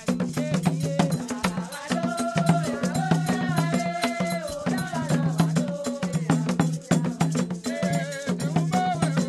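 Music with busy percussion: rapid clicks and rattles over a pulsing bass line, with a melody that bends up and down.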